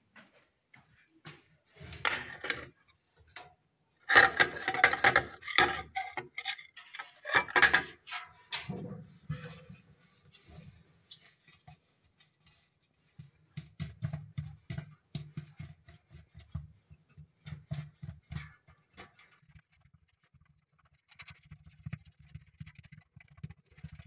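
Clattering and knocking from handling, loud in clusters in the first third. This is followed by soft, broken rubbing and scraping as fingers press and smooth two-part epoxy putty onto the leak in a stainless-steel washing machine tub.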